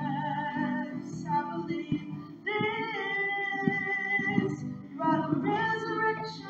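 A woman singing a worship song solo, holding long notes with vibrato, with short breaks between phrases.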